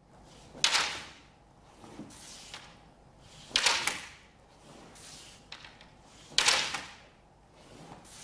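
Bamboo kendo shinai clashing and striking in a repeated maki-otosu drill: three sharp cracks about three seconds apart, with softer knocks between them.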